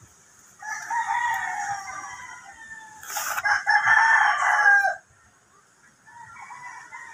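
Roosters crowing: one crow about half a second in, a louder one that stops sharply about five seconds in, and a fainter one near the end.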